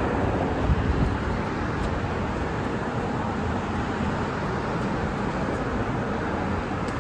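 Steady city traffic noise: cars passing on a wet street, an even hiss of tyres and engines, with a couple of low bumps about a second in.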